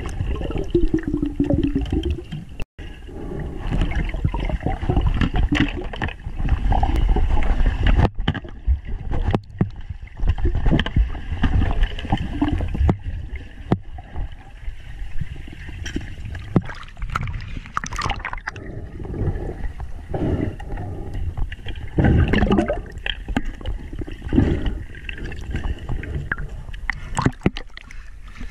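Muffled underwater sound picked up by a submerged camera: low rumbling water movement with gurgling bubbles and frequent knocks and bumps.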